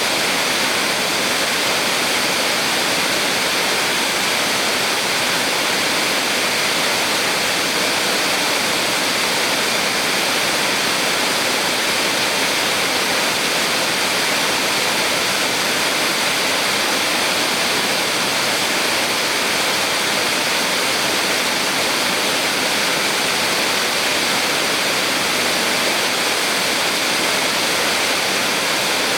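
Small waterfall on a mountain stream, water falling and splashing in a steady, unbroken rush with a bright hiss.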